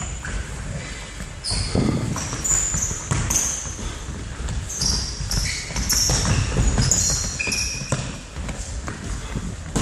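Indoor football in a sports hall: the ball thudding and bouncing, feet running, and many short high squeaks of shoes on the hall floor, with the hall's echo.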